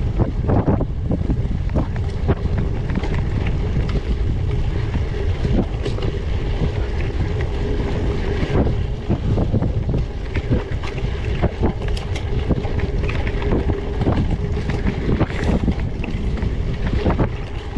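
Wind buffeting the microphone over the rumble of a gravel bike's 700x38c tyres rolling on rough off-road ground, with many small knocks and rattles.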